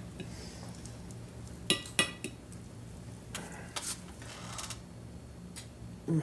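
A metal fork clinks twice on a plate about two seconds in, followed by softer scraping and rustling as it twirls spaghetti. A short low sound comes near the end, over a low steady hum.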